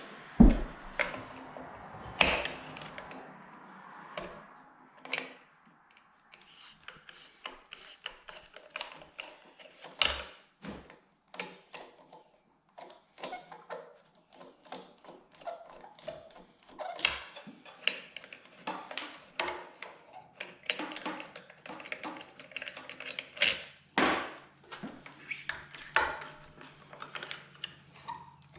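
Irregular clicks, knocks and light clatter of hard objects being handled, with a few short high pings; a faint low hum comes in about two-thirds of the way through. No sander is running.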